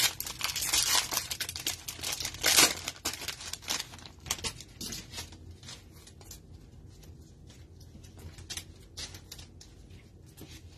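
Cellophane wrapper of a trading-card cello pack crinkling and tearing as it is pulled open, loudest about two and a half seconds in. Then quieter handling of the cards, with scattered soft clicks and slides as they are flipped through.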